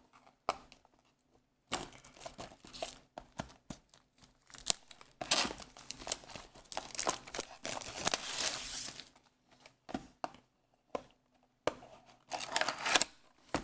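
Plastic wrapping being torn and crinkled off a trading-card booster box, in irregular rustling bursts with a short pause about ten seconds in.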